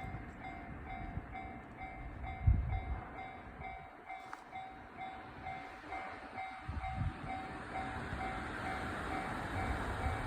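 Japanese level crossing warning bell ringing, an electronic ding repeating evenly a few times a second. A rising rush of train noise builds from about seven seconds in.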